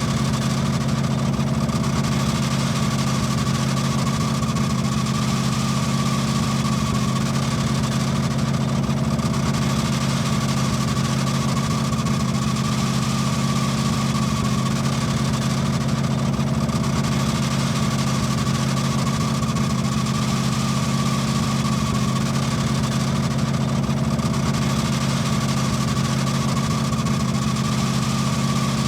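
Car engine idling steadily with a continuous high squeal over the engine hum, the squeaking of its drive belt.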